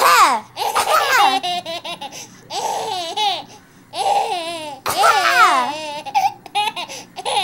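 A baby laughing in several high-pitched bursts, each set off by short coughs from its mother.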